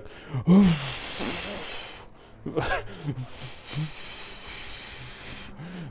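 A man imitating a gust of wind with his mouth: two long blowing hisses, with short voiced bits mixed in.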